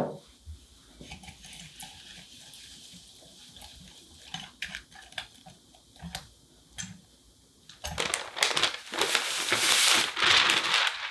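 A single sharp knock at the start, then a wire whisk stirring egg whites with sugar and salt in a glass bowl, its wires tapping the glass irregularly. About eight seconds in, sifted flour and almond powder slide off a sheet of paper into the bowl with a loud papery rustle.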